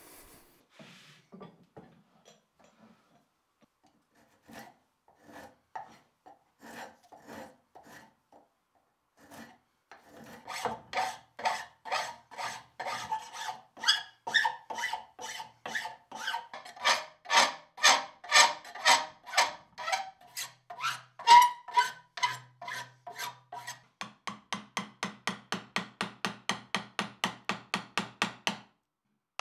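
Hand file being drawn in strokes over an axe's wooden handle where it meets the metal of the head and straps, filing the wood and metal flush. The strokes are scattered at first, settle into a steady rhythm of about two a second with a ringing tone under them, then turn quicker, about five a second, near the end.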